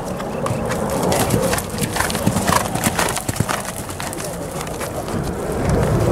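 Hoofbeats of a horse cantering over sandy ground. A dense run of sharp thuds comes in the first three seconds or so as the horse comes past, then thins out as it moves off.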